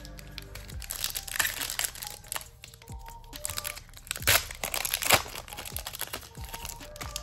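Foil trading-card booster pack wrapper crinkling as it is torn open and handled, a run of crackles with the sharpest about four and five seconds in, over background music.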